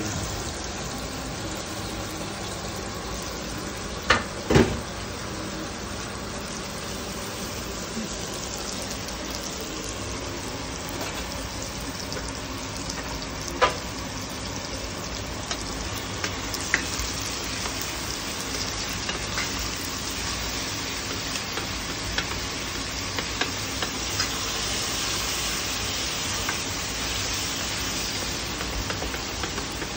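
Food frying in hot oil in a pan, a steady sizzle, with a few sharp clicks now and then.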